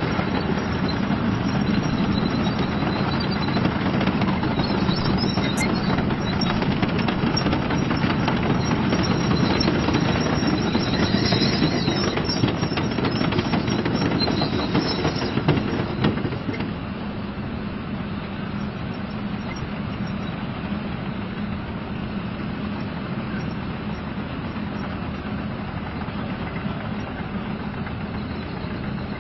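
Leopard 2A4 tank on the move, its V12 diesel engine running and its steel tracks clattering. The sound is louder for a little over half the time, then drops to a quieter steady level.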